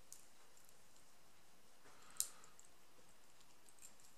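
A few small, sharp clicks from a padlock core being taken apart as its pins are removed chamber by chamber. The loudest click comes about two seconds in, with fainter ones near the start and near the end.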